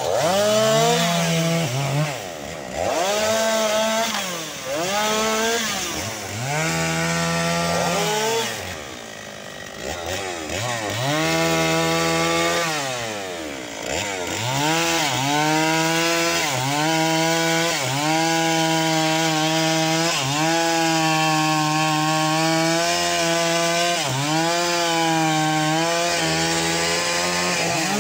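Stihl two-stroke chainsaw cutting through felled tree limbs. The engine revs up and falls back toward idle several times in the first half, then runs mostly at full throttle with a few brief dips.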